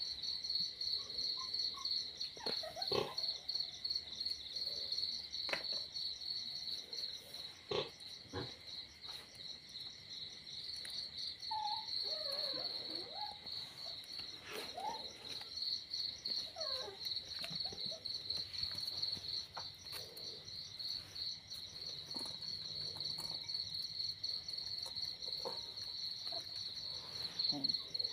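A chorus of night insects chirping: a steady, high, rapidly pulsing trill. Over it come a few faint clicks and soft handling noises.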